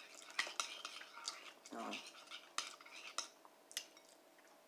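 Metal spoon clinking and scraping against a bowl of oatmeal: a handful of sharp, irregular taps.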